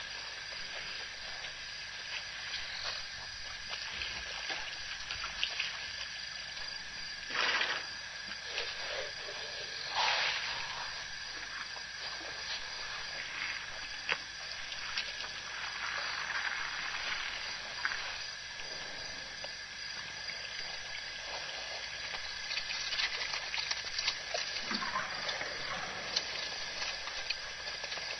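Elephants drinking at a waterhole: water sloshing and dribbling as they draw it up in their trunks, with two louder splashes about seven and ten seconds in, over a steady background hiss.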